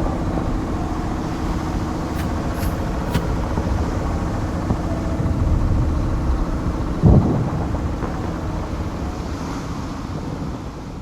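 Sound-designed WW2 war ambience: a steady low rumble with a single heavy thump about seven seconds in, fading out at the end.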